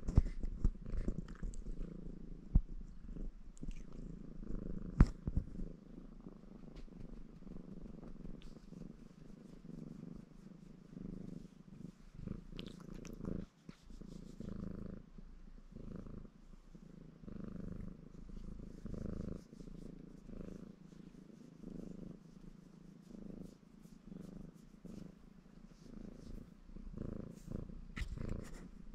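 Ginger Maine Coon cat purring steadily, the purr swelling in waves about a second apart. A few sharp clicks come in the first five seconds.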